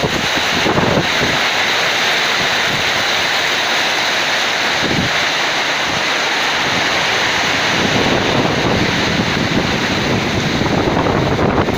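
Heavy rain pouring steadily in a windy summer storm, with gusts buffeting the microphone, strongest in the last few seconds.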